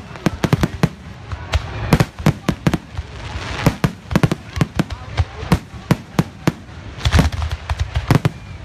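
Aerial fireworks display: a rapid barrage of shells bursting, several sharp bangs a second, with stretches of crackle between them.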